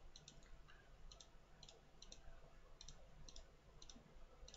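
Faint computer mouse clicks, several short press-and-release pairs spread irregularly, over a low steady hum.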